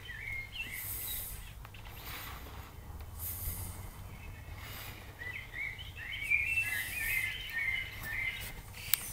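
Songbirds singing in the garden trees: scattered warbling chirps, busiest in the second half, over a steady low rumble. A single sharp click comes just before the end.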